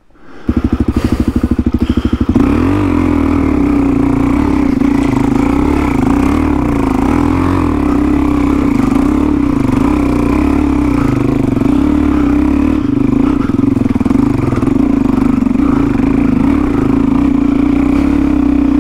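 Single-cylinder four-stroke dirt bike engine starting up about half a second in, pulsing for a couple of seconds, then running loud and steady at held revs.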